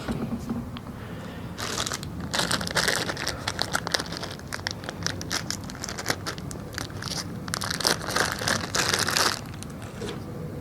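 Plastic crinkling and rustling with small clicks, in irregular bursts over several seconds, as the plastic gas can and its small plastic vent parts are handled.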